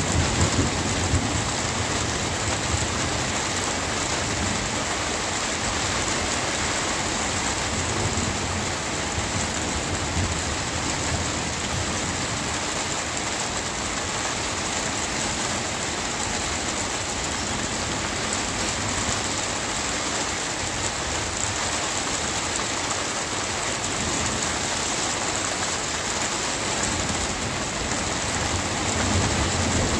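Steady rain falling, with a low rumble of thunder in the first second and another rumble coming in over the last few seconds.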